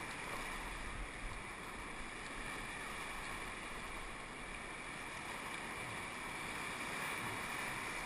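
Whitewater rapids on the Arkansas River rushing steadily around a paddle raft, with the river running at about 2200 cubic feet per second.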